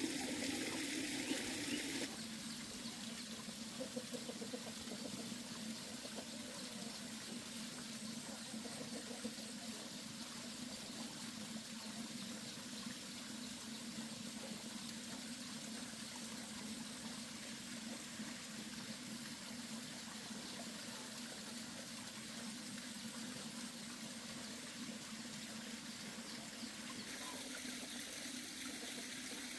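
Water running steadily, with a shift to a slightly quieter, duller flow about two seconds in.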